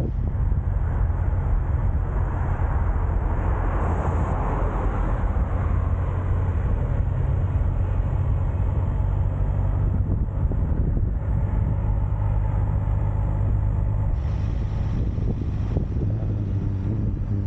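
A motor vehicle's engine running steadily: a continuous low drone with a haze of running noise over it.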